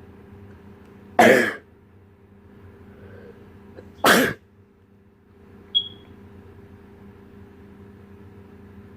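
A person sneezing twice, two sharp explosive bursts about three seconds apart, followed by a brief high-pitched squeak, over a steady background hum.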